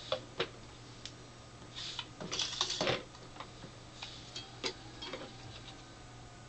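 Handling noise from a small portable LCD TV: plastic clicks and taps of the set and its remote, with light metallic clinks and scraping as the telescopic antenna is moved. The busiest stretch of rattling comes about two seconds in, with a few scattered clicks after.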